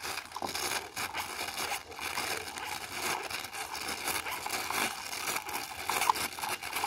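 Tiny meths-fired live steam toy car hissing and spitting irregularly, with scratchy crackles, as steam and water escape through a crack that needs soldering.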